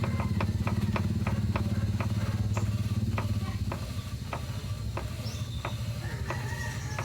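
Ford EcoSport engine idling in neutral with a regular clunking, sharp knocks about three a second over the steady low hum. The idle gets a little quieter about halfway through.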